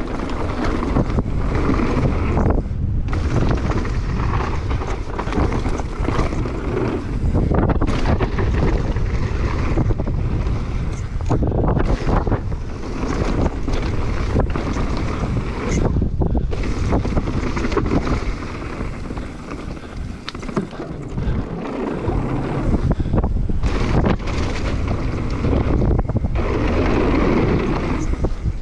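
Downhill mountain bike running fast down a dirt and gravel trail: a steady rush of wind on the microphone and tyre rumble, with frequent short knocks and clatter from the bike over bumps.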